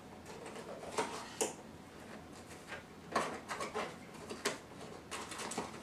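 Unboxing sounds from a new GoPro camera box: packaging and accessories handled on a table, giving irregular light clicks and rustles.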